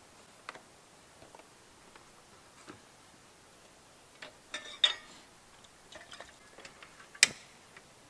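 Scattered light clicks and clinks of camp cookware being handled at a small stove: a cluster of them about halfway through and one sharp clink near the end.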